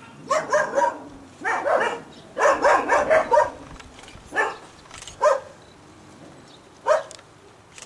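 A dog giving high-pitched barks and yelps. They come in quick runs over the first three seconds or so, then as single calls about a second apart.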